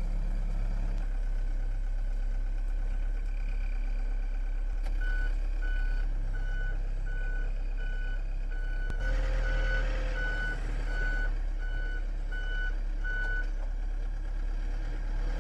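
Backhoe engine running steadily while its reversing alarm beeps about one and a half times a second, starting about five seconds in and stopping near the end, the sign that the backhoe is backing up. The engine rises a little partway through.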